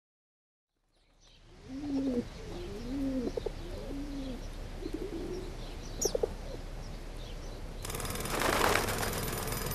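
Pigeons cooing, several low rolling coos in the first few seconds, with faint higher chirps over them. Near the end a louder rush of noise rises and falls.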